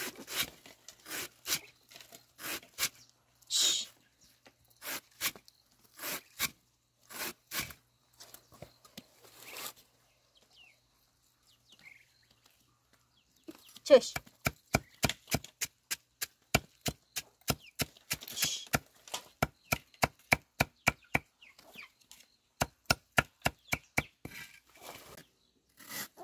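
A knife chopping on a board: slow, uneven strokes at first, then after a short pause a steady run of about two to three chops a second.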